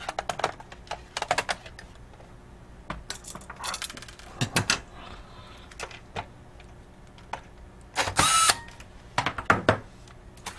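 Light clicks and clatter of thin metal and plastic laptop parts being handled and fitted as the heat shield is set back over the video card, with a louder scraping rattle about eight seconds in.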